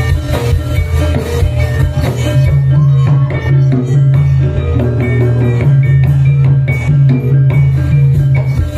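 Live music accompanying a jathilan dance: drums and percussion strike steadily over a loud, sustained bass line, with pitched melody notes on top.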